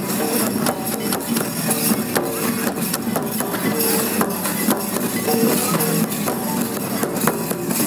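Live folk music: a large barrel drum beaten with a stick in a fast, steady stream of strikes, with a short repeated melody line over it.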